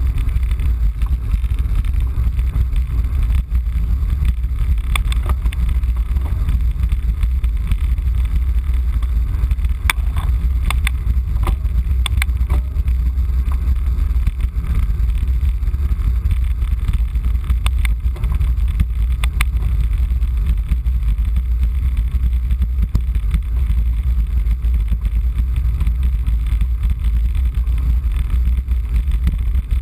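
Steady, loud wind rush buffeting the microphone of a bike-mounted camera on a fast road-bike descent, with the hiss of tyres on wet asphalt under it. A few sharp clicks come in the middle.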